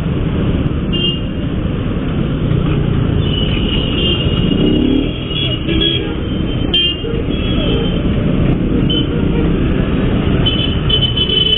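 Motorcycle riding through busy street traffic: a steady rumble of engine and wind on the microphone, with several short, high-pitched vehicle horn toots.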